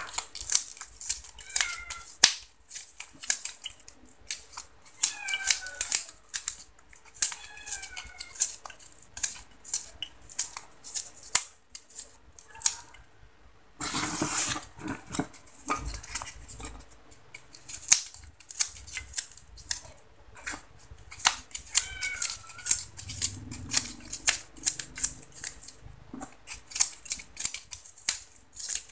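Styrofoam being snapped, cut and crumbled into small pieces by hand: repeated short, crisp crackles and crunches. A longer scrunching burst comes about halfway through.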